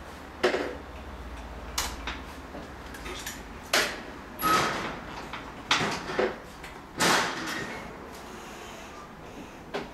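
A series of about eight irregular knocks and clattering scrapes, two of them drawn out for about half a second, over a low hum that fades after about three seconds.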